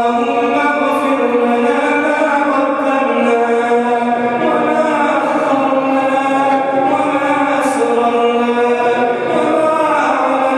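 A man chanting an Islamic supplication (dua) into a microphone in long, drawn-out melodic notes, each held for several seconds, with the pitch shifting a couple of times.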